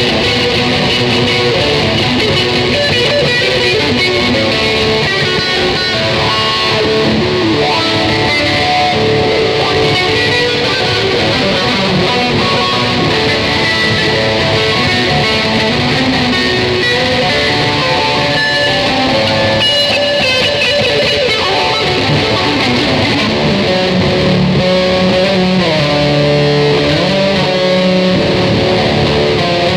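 Electric guitar playing an improvised run of plucked notes and strummed chords, with lower notes growing stronger in the last few seconds.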